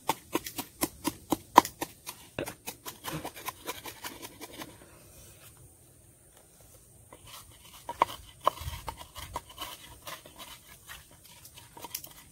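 Pestle pounding chilies and salt in a mortar: quick, even knocks at about three a second that slow and stop for a couple of seconds midway, then resume more unevenly.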